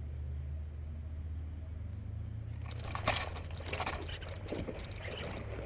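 A low steady wind rumble on the microphone, then from about three seconds in an irregular run of sharp splashes and crackles: a hooked largemouth bass thrashing at the surface in matted pond grass.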